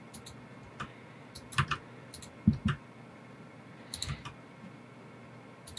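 Scattered computer keyboard and mouse clicks, single or in quick pairs with pauses between, and two soft low thumps about halfway through.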